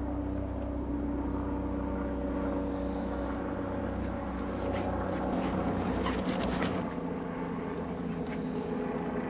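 A steady, engine-like drone holding several constant pitches over a low hum, with a stretch of rustling, scuffling noise from about four to seven seconds in.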